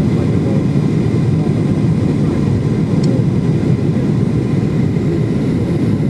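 Steady rumble of a jet airliner's engines and airflow heard from inside the passenger cabin during the approach to landing, a dense low noise without breaks, with a faint steady whine above it.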